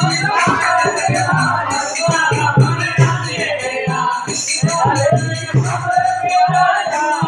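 Live devotional bhajan music: a pair of hand drums played in a steady rhythm, with jingling percussion and voices singing over it.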